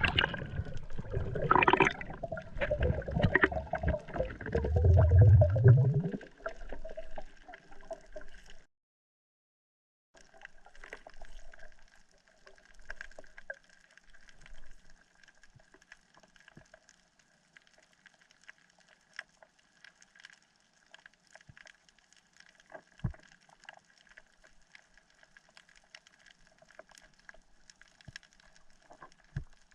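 Water splashing and gurgling, loud and uneven, for the first several seconds. It stops abruptly, and after a short gap a much quieter steady background with a faint hum and occasional clicks follows.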